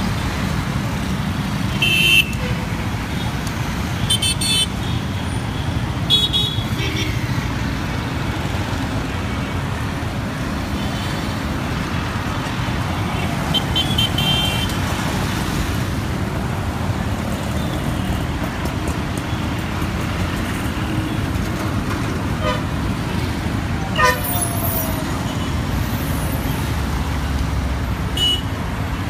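Dense city traffic at a junction heard from a motorbike: a steady rumble of motorbike, auto-rickshaw and car engines. Short vehicle horn toots sound several times, around two, four, six and fourteen seconds in and again near the end.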